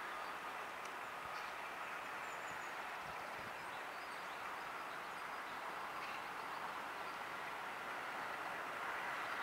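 Distant Class 232 (BR232) diesel locomotive running as it hauls a train of coal wagons, a steady far-off rumble that grows slightly louder near the end as it approaches.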